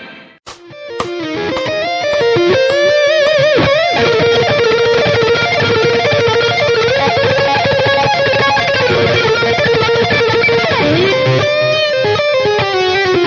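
Electric guitar playing a lead lick: a run of picked notes, then notes shaken with vibrato, a long held note, and a slide down near the end.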